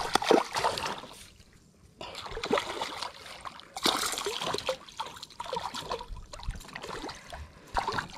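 Water splashing in irregular bursts as a hooked largemouth bass thrashes at the surface while it is reeled in beside the kayak.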